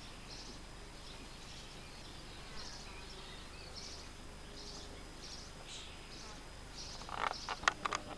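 Faint outdoor ambience with a bird chirping repeatedly in short, high calls. Near the end comes a cluster of sharp clicks and knocks as the camcorder is handled and swung down.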